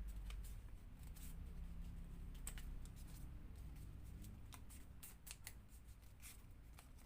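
Origami paper being handled and folded, with faint, irregular crinkles and taps as the folds are pressed flat.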